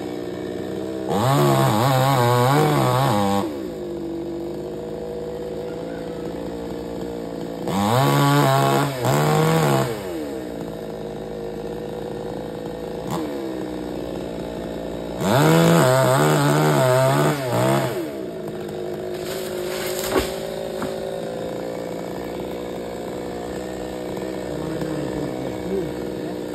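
Chainsaw idling, revved hard three times for two to three seconds each, its pitch wavering during each burst, as when cutting into wood. A single sharp knock comes near the end.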